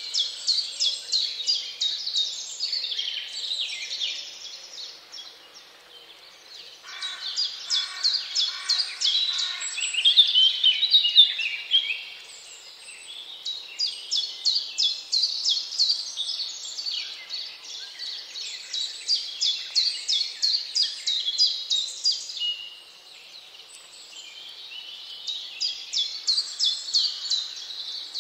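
A songbird singing long phrases of rapid, repeated high notes, with short pauses between the phrases.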